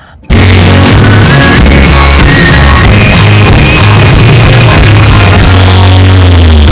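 Loud rock-style background music with a heavy bass line and a sustained lead melody, starting abruptly about a third of a second in.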